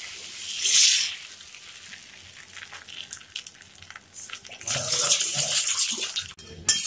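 Dosa batter hissing on a hot pan as it is spread in circles with the bottom of a bowl. The hiss is loudest about a second in, then falls to a faint sizzle. A second stretch of louder hissing with light knocks comes near the end.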